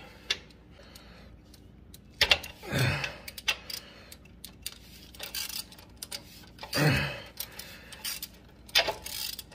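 Hand wrench tightening bolts under a mower: scattered short runs of metal clicks and tool clatter. Two louder rubbing noises come twice, about 2.5 and 7 seconds in.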